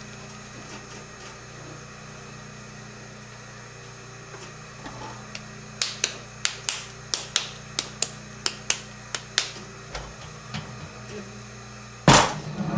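A run of about a dozen sharp taps, roughly three a second, while a plaster bat is set on a potter's wheel head and fixed with clay, over a steady low hum. A single loud thud comes near the end.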